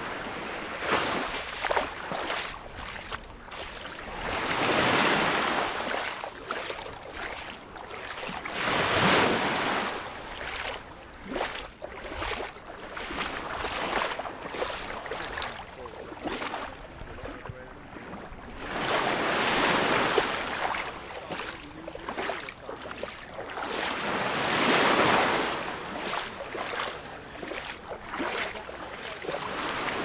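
Small Mediterranean waves breaking and washing up a sand-and-pebble shore, with four louder surges, each lasting about two seconds, over a steady wash. Short crackling and fizzing of water through the gravel runs between them.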